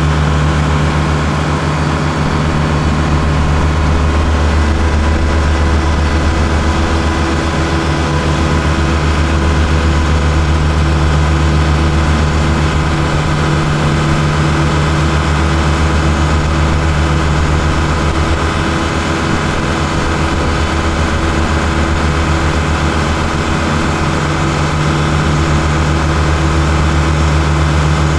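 Kubota L1-452 tractor's diesel engine running at a steady speed on board while driving a Trimax Pro-Cut S4 mower cutting grass: a constant low hum that does not change.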